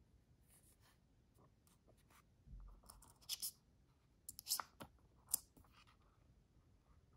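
Small steel precision driver bits being handled in their foam-lined case, giving a handful of faint clicks and taps. There is a soft low thump about two and a half seconds in.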